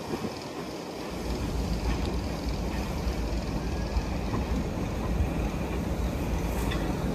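Caledonian Railway 812 Class 0-6-0 steam locomotive No. 828 running towards the platform. Its steady rumble grows louder about a second in.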